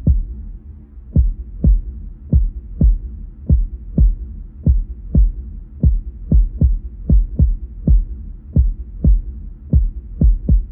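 Heartbeat sound effect opening an instrumental hip-hop beat: deep, muffled thumps over a low hum, about two a second, quickening toward the end.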